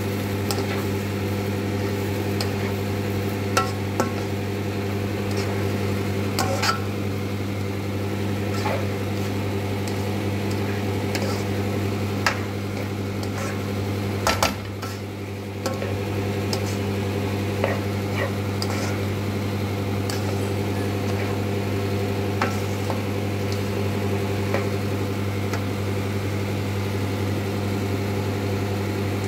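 Plastic slotted spatula scraping and knocking against a nonstick pan as fried rice is stirred and tossed, in scattered clicks with a louder knock about halfway through. A steady low hum runs under it.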